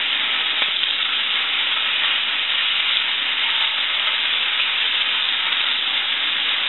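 Butter frying in a skillet with halved hot water cornbread in it: a steady, even sizzle.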